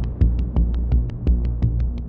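Electronic background music with a steady beat: fast, even ticks about six a second over a heavy bass pulse.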